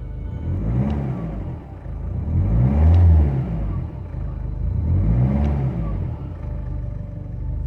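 Ford Fiesta's TDCi diesel engine idling and revved three times, each rev rising and falling back to idle. The revs answer the newly fitted accelerator pedal, showing it works.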